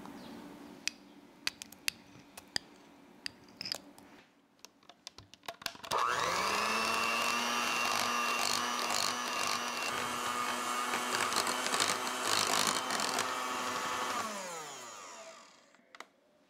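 Electric hand mixer beating heavy cream into cream cheese frosting: a few light clicks first, then the motor starts about six seconds in with a rising whine, runs at a steady hum, and winds down with falling pitch near the end.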